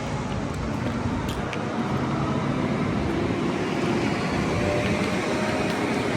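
Steady engine rumble from construction machinery, with a couple of faint knocks about a second in.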